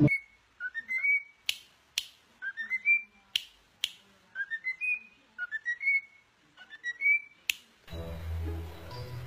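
A bird whistling the same short phrase over and over, about six times: a few quick notes stepping upward to a held top note. Sharp clicks fall between the phrases, and music comes in near the end.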